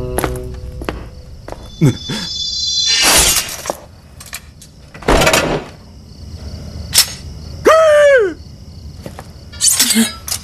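Sword-fight sound effects: several sharp swishes and strikes, a ringing high tone about two to three seconds in, and a man's short cry falling in pitch near the eight-second mark.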